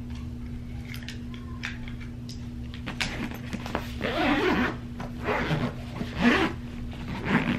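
Backpack being handled and zipped shut: a few light clicks, then repeated rasping zipper pulls from about three seconds in, over a steady low hum.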